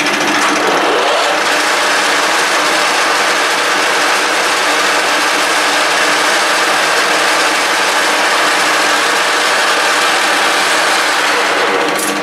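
1K62 engine lathe running, with a loud, steady gear noise from its headstock.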